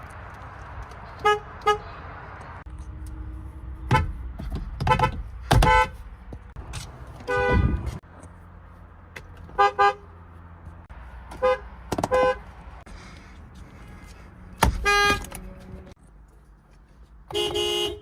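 Car horns of several different cars honking one after another, mostly brief single or double toots, with road noise between them. The longest honk comes near the end.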